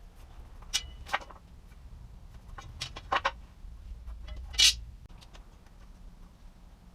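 A few scattered clicks and knocks over a low steady rumble, the loudest a short clatter about four and a half seconds in.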